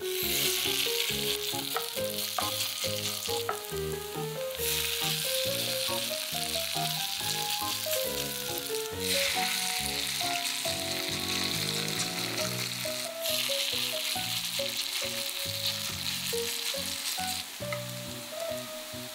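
Potatoes deep-frying in hot oil: a steady sizzle that jumps abruptly in strength several times, over light background music.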